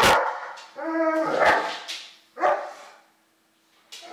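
Doberman barking, three sharp barks in the first two and a half seconds.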